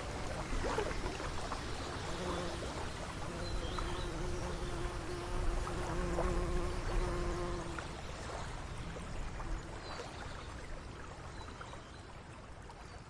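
Water ambience of a lake or stream flowing and trickling, with a few faint high chirps, gradually fading out.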